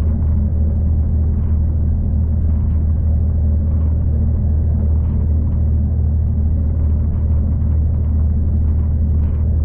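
Steady low rumble of a V/Line passenger train running along the track, heard from on board, with faint occasional ticks and rattles.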